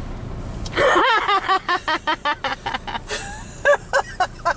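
A woman laughing: a quick run of short 'ha-ha' bursts starting about a second in, falling in pitch, with a few more laughs near the end.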